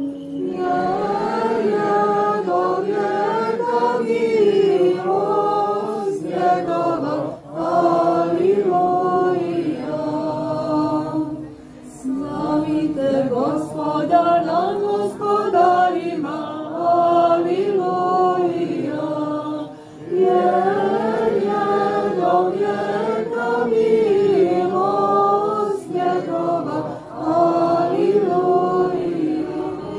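A group of voices singing Orthodox church chant in long melodic phrases, with brief pauses between phrases.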